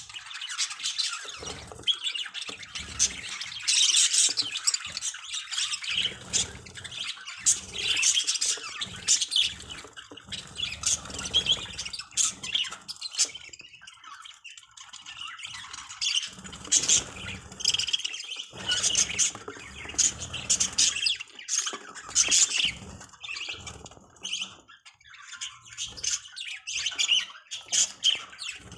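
Budgerigars chattering and squawking, many short, high calls overlapping one another throughout.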